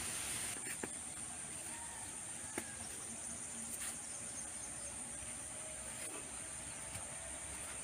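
Steady high-pitched chorus of insects, with a few light knocks scattered through.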